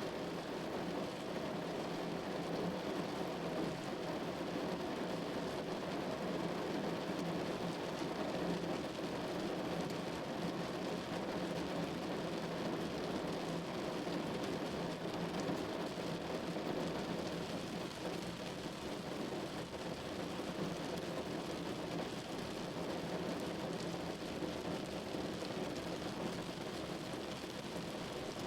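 Steady rain falling, an even, unbroken patter of rain on surfaces.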